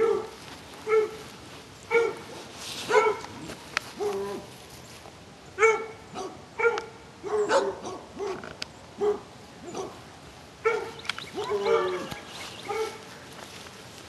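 Dogs barking repeatedly, about one bark a second, with a few barks overlapping near the end.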